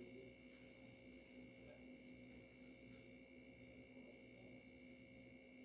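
Near silence: room tone with a faint steady electrical hum and high whine.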